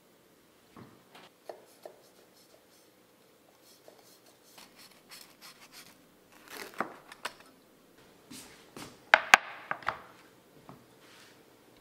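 Knife cutting through a soft sponge cake on a bamboo cutting board: scattered soft knocks and scrapes of the blade meeting the board, with a pair of sharp knocks about three-quarters of the way through.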